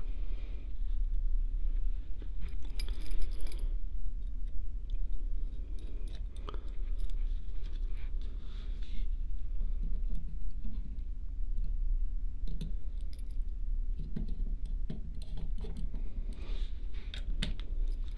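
Scattered small clicks and light clatter as a small metal plate and tiny screws are handled and fitted back into an HO model locomotive shell with a small screwdriver, over a steady low hum.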